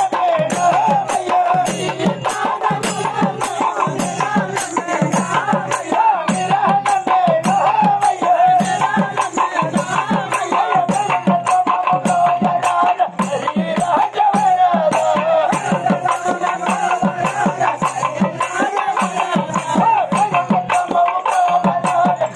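Live folk festival music: hand-beaten barrel drums in a fast, driving rhythm with rattling percussion, under a continuous wavering melody line.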